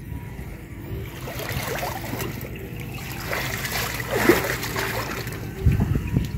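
Water splashing and trickling as people wade and grope through shallow canal water for fish, with a few heavy low bumps near the end.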